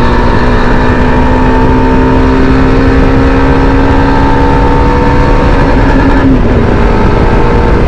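Yezdi Adventure's single-cylinder engine running steadily at highway speed under heavy wind rush, its note dropping about six seconds in as the throttle is closed and engine braking slows the bike.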